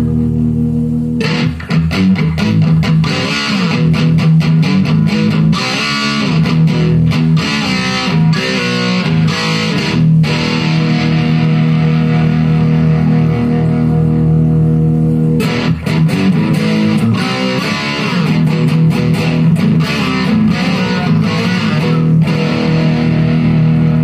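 Electric guitar played through a Marshall Jackhammer JH-1 overdrive/distortion pedal, with a distorted tone. A held note rings for about a second, then a run of picked notes and chords begins; notes are held after about ten seconds, and another run starts around fifteen seconds in.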